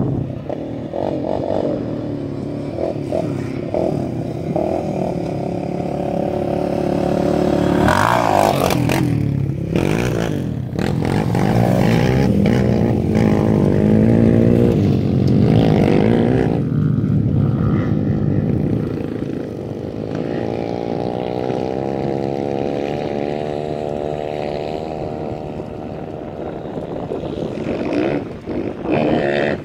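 M2R 140 pit bike's single-cylinder four-stroke engine being ridden, its pitch rising and falling with the throttle. It is loudest as the bike passes close by about halfway through, then runs steadier and farther off.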